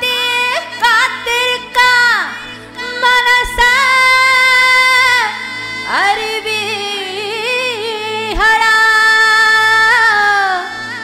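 A singer holds long wordless notes, each sliding up into its pitch and some with a wavering vibrato, over a steady keyboard drone. It is the slow, free-time vocal opening of a film song performed live.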